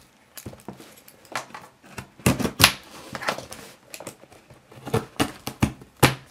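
Cardboard shipping box being handled while its packing tape is scraped and picked at: a string of irregular scratches, taps and knocks on the cardboard.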